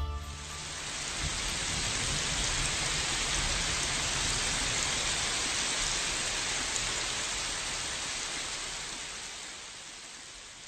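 Rain falling steadily, a dense even hiss that swells in over the first second or two and fades away over the last few seconds.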